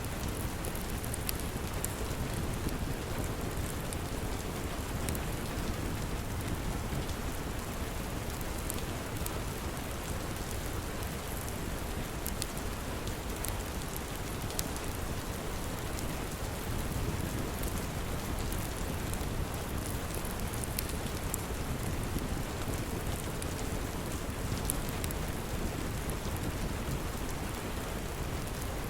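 Steady rain with a crackling fireplace: a constant hiss and low rumble with scattered sharp pops.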